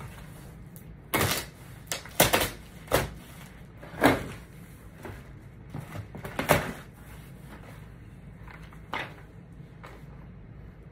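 Cardboard shipping box being torn open by hand: packing tape ripped off and the flaps pulled apart, in a series of short, sharp rips and scrapes. The loudest come in the first seven seconds, with a couple of fainter ones near the end.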